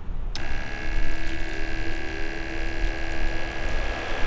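1,500 PSI high-pressure misting pump switching on about a third of a second in and running with a steady hum and high whine, a rushing hiss building in the second half. It is run with the outlet open to push out air and storage debris until solid water flows, purging the air lock during dewinterization.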